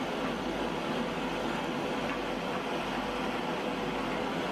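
Steady rushing hiss of a gas torch flame heating lead body filler on a steel bumper as it is worked smooth with a wooden paddle. No distinct knocks or strokes stand out.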